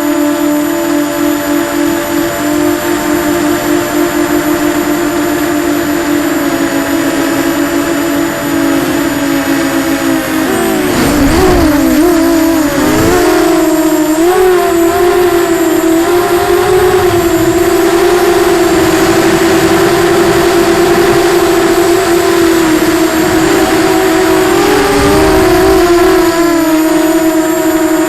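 Eachine Falcon 250 FPV quadcopter's brushless motors and propellers whining steadily in flight, the pitch wavering up and down with throttle changes about 11 seconds in and again near 25 seconds, a little louder after the first change.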